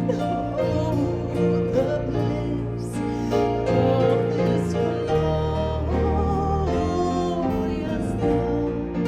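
Worship music: singing over instrumental accompaniment with a steady bass, the voices holding long notes.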